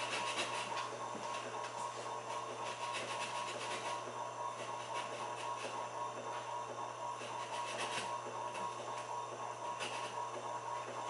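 Steady electrical whine with a low hum from a servo motor and its drive on a test bench, with a faint hiss that swells briefly every few seconds.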